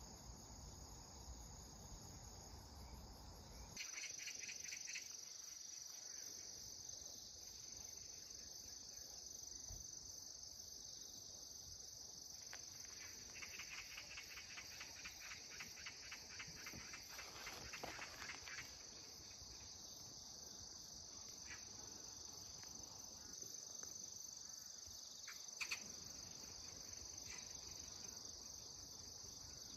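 Faint, steady chorus of insects chirring, with a rapid pulsing insect call standing out for a few seconds in the middle.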